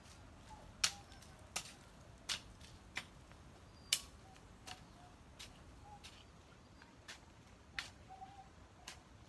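Hoe blade striking and scraping into soil in a steady rhythm: about eleven sharp chops, a little faster than one a second.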